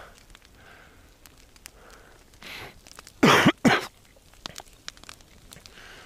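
A man coughs twice in quick succession about three seconds in, after a soft breath.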